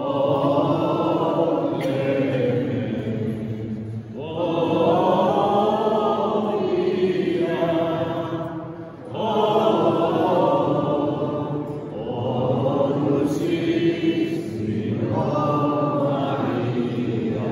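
A group of voices singing a slow hymn together, in sustained phrases a few seconds long with brief pauses for breath between them.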